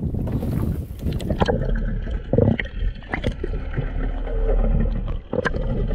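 Wind and sea noise in the open air, then, from about a second and a half in, the muffled sound of water heard underwater: bubbling and gurgling with scattered sharp clicks over a low steady hum.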